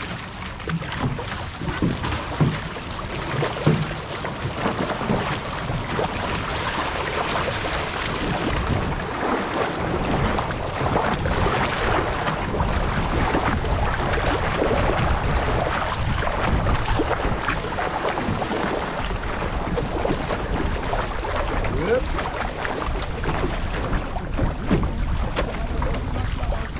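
Water rushing and splashing along the hull and float of an outrigger canoe under paddle, with wind buffeting the microphone. The rush grows louder and steadier after the first few seconds.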